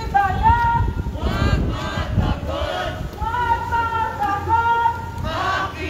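A crowd of protesters chanting in unison, some syllables drawn out into long held notes, over a low street rumble.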